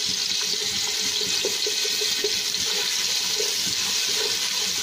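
Crushed garlic sizzling in hot cooking oil in a frying pan: a steady hiss with small scattered crackles as the garlic fries toward light brown.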